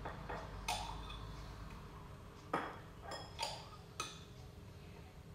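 A steel spoon clinking against a glass bowl and clay kulhad cups as thick kulfi mixture is spooned out, several light, irregularly spaced clinks.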